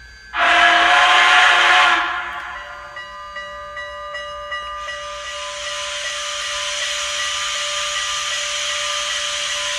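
Steam-locomotive sound effects from the model's sound system. A loud steam-whistle blast lasts about a second and a half, then a steady hum with faint regular ticks about twice a second, and from about five seconds in an even steam hiss.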